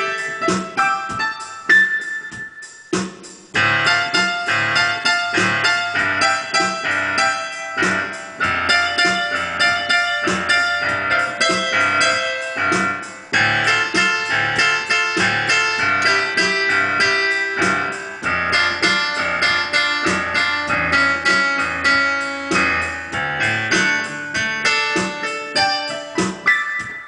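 Digital piano played at a brisk pace in quick runs of notes. The playing thins briefly about three seconds in, then goes on densely.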